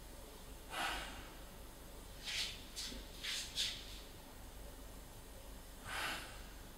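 A person breathing audibly: one breath about a second in, a quick run of shorter breaths between two and four seconds, and another breath near six seconds. These are the deliberate deep in-and-out breaths of a breathing exercise.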